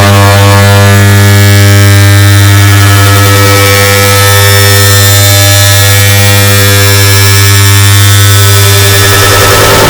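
Air conditioner turn-on sound layered and amplified many times over, heard as a very loud, steady electric hum with a deep low drone and many overtones.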